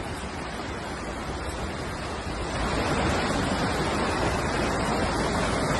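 Floodwater rushing through a city street in a steady torrent of churning water, getting a little louder about two and a half seconds in.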